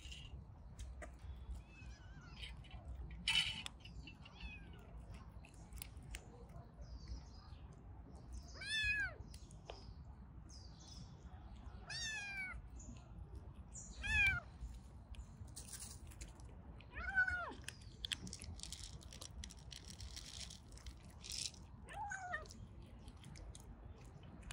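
Cat meowing: five short meows a few seconds apart, each falling in pitch.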